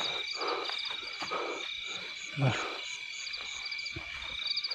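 A night chorus of frogs croaking and insects calling in steady, rapid pulses, with leaves and brush rustling as someone pushes through vegetation. A short low voice-like sound comes about halfway through.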